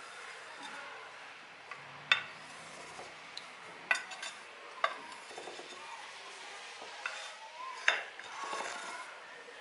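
Tailor's chalk scraping over cloth as it is traced around the rim of an upturned ceramic plate, with four sharp clicks of hands against the plate.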